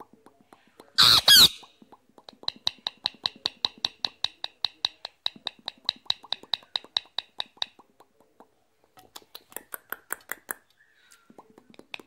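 Indian ringneck parakeet giving one loud squawk about a second in, then a fast, even run of clicking, about six clicks a second, for some six seconds. A second, shorter run of clicks comes near the end.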